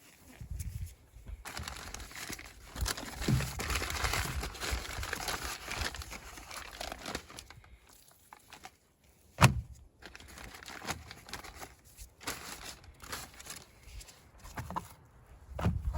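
Crinkling, rustling handling noise for several seconds, then one sharp knock a little past the middle, followed by a few lighter knocks.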